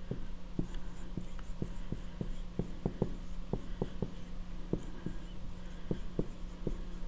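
Dry-erase marker writing on a whiteboard: a string of short, irregular marker strokes and taps against the board, over a steady low hum.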